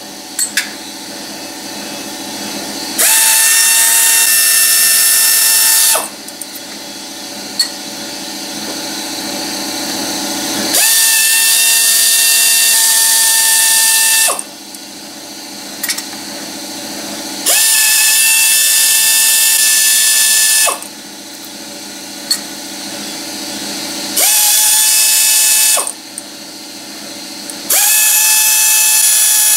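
Power ratchet spinning out the Torx bolts that hold a Mercedes 722.6 transmission's valve body: five runs of a few seconds each, a steady whine with short pauses between while the tool is moved to the next bolt. A quieter steady hum lies under the pauses.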